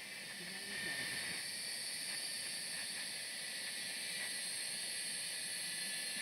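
Steady high-pitched hiss of outdoor ambience, a little louder from about a second in.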